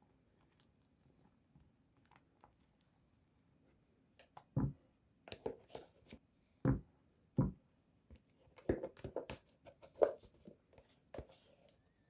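Kitchen handling sounds: a string of short knocks and taps, about a dozen, beginning around four seconds in, after a quiet start.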